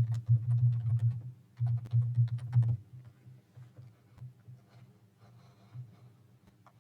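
Scattered clicks and taps, dense for the first three seconds over a low hum that swells and drops, then sparser, fainter ticks.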